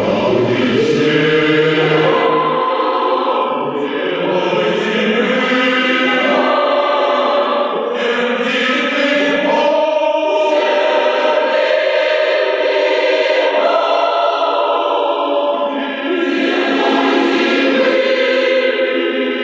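Choir singing in the Russian choral style, holding sustained chords that move from one to the next.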